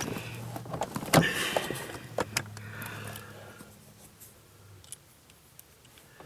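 Small metal clicks, knocks and scrapes of a screwdriver and shifter parts being handled during a short-shifter install, a few sharp taps in the first couple of seconds. A low steady hum runs under them and stops about five seconds in.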